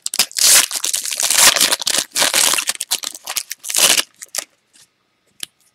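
A football trading card pack's wrapper being torn open and crinkled as the cards are pulled out. The crackling stops about four seconds in, leaving a few faint ticks.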